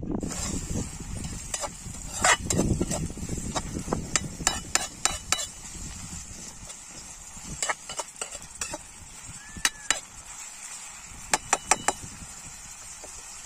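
Metal spoon stirring diced onion and tomato in a metal pan over a campfire, clinking and scraping against the pan in short runs of sharp clicks, over a faint steady sizzle.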